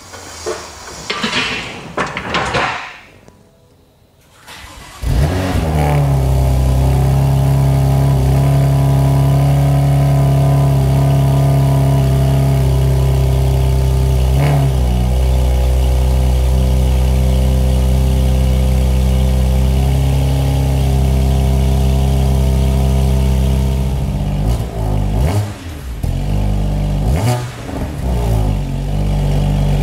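BMW M2 CS twin-turbo inline-six starts about five seconds in through a new resonated equal-length mid pipe, settles into a steady idle, and is blipped several times near the end. The exhaust valves are staying closed because the unplugged EDC fault keeps the car from opening them.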